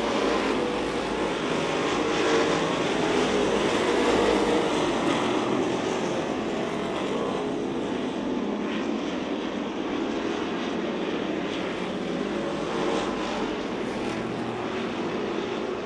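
Engines of a pack of street stock cars racing around the oval: a steady, dense drone of many engines at once, a little louder a few seconds in.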